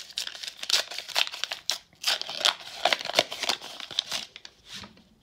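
Foil wrapper of a baseball card pack being torn open and crinkled by hand, a quick run of sharp crackles that stops near the end as the cards are slid out.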